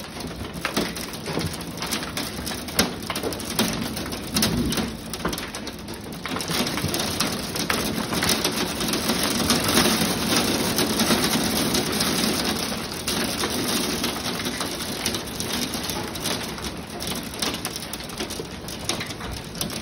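Grape-size hail and heavy rain pelting a wooden deck and a glass door: a dense hiss full of hard clicking impacts. It grows heavier about six seconds in, is heaviest around ten seconds, then eases a little.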